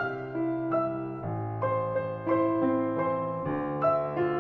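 Background piano music: a gentle melody of single notes, one every half second or so, over longer low notes.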